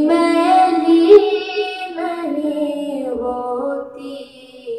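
A child singing a naat, holding long ornamented notes whose pitch steps up and down, with no words clear.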